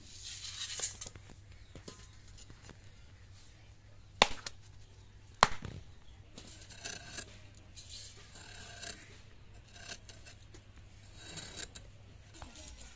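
Two sharp slaps about a second apart as snakehead fish drop onto a bare concrete floor, followed by a run of short scraping cuts.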